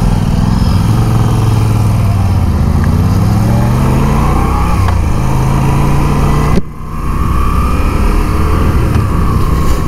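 Moto Guzzi V7 850's air-cooled transverse V-twin pulling under load on the move, its pitch climbing over several seconds. The sound breaks off suddenly about two-thirds of the way in, then the engine carries on.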